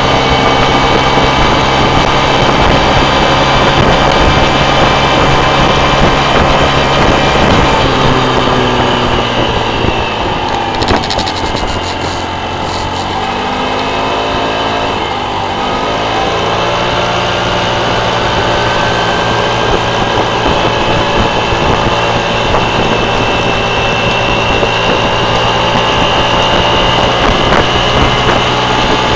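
Motorcycle engine running under way. About eight seconds in its pitch falls as it slows, it stays low for a few seconds, then it rises again as it speeds back up.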